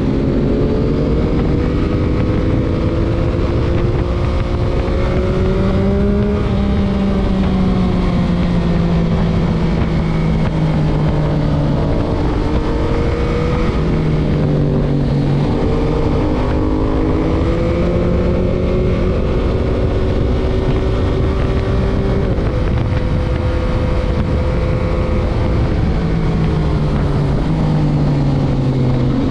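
Stock 2021 Yamaha MT-09's 890 cc three-cylinder engine under way, heard from the rider's chest: the pitch climbs and falls with the throttle and steps at several gear changes.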